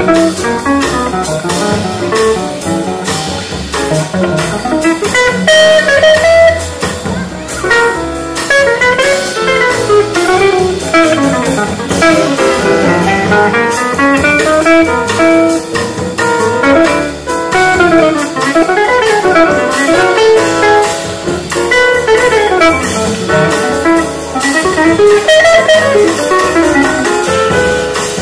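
Live jazz band: a jazz guitar plays a fast, winding single-note solo over double bass and piano accompaniment.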